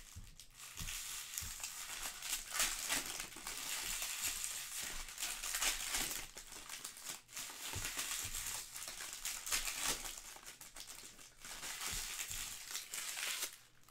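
Foil trading-card pack wrappers crinkling as they are torn open and handled, with occasional soft knocks.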